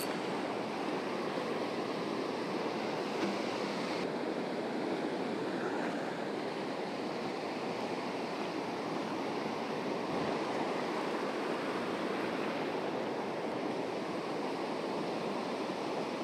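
Small Gulf surf waves washing steadily onto a sandy beach, an even rushing noise, with a brief sharp click at the very start.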